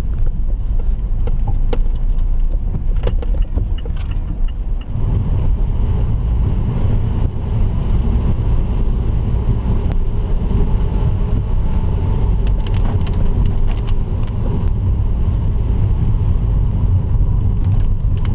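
A vehicle engine running with a steady low rumble, with a few sharp clicks in the first few seconds.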